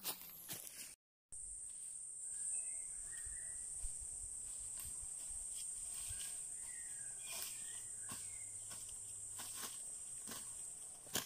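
Steady high-pitched drone of insects in dry forest, starting about a second in, with a few short chirps over it. Footsteps crunch through dry leaf litter, closer and more frequent near the end.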